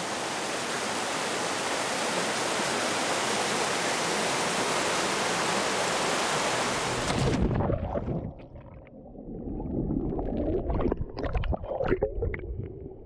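Steady rush of a small waterfall pouring into a rock pool. About seven seconds in it cuts off sharply to muffled sound from under the water, with bubbling and scattered knocks.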